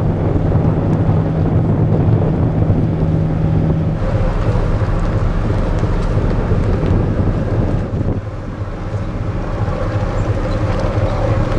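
Steady low drone of a car ferry's engines heard from the open deck, with wind rushing over the microphone. The sound shifts abruptly twice, about four and eight seconds in.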